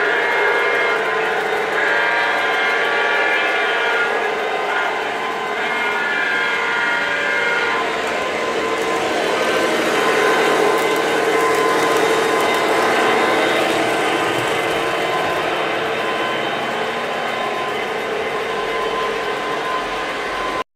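Lionel O-gauge Union Pacific DD35A model diesel locomotives running as a pair on three-rail track: a steady running din of motors, gearing and wheels on the rails, with several held tones over it, easing slightly toward the end.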